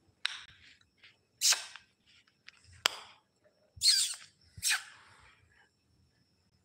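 A woman making short breathy mouth noises: several brief hissing puffs of breath through pursed lips, and one sharp mouth click about three seconds in.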